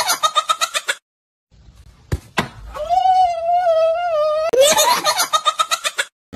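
A baby laughing in quick giggling bursts, cut off after about a second. Then two sharp thuds and a man's long, wavering yell, after which the baby's giggling returns.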